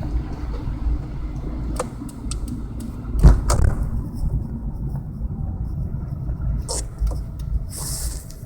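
Acura RSX four-cylinder engine running under the open hood, a steady low rumble. There are a few sharp clicks and one loud knock about three seconds in, and the sound cuts off at the end.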